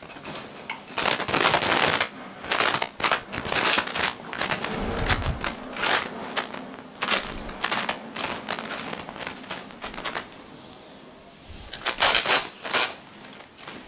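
Rapid clicking and clattering of metal parts and tools being handled on a bench, in clusters, with the busiest runs about a second in and again near the end, and a duller knock in the middle.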